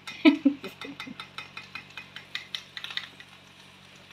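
Steak on a hot plate sizzling as sauce is poured onto it, spitting and crackling in quick irregular pops that die away after about three seconds. A louder knock near the start.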